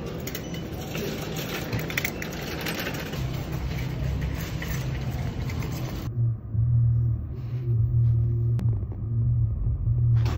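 Footsteps of someone walking in Mary Jane shoes, with scattered clicks over general background noise. About six seconds in, an abrupt cut brings in a car's low, steady engine drone heard from inside the cabin.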